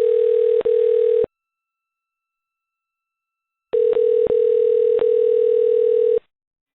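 A loud, steady single-pitched tone heard over a telephone line. It stops about a second in, leaving a silence of over two seconds, then comes back with a couple of clicks and stops shortly before the end.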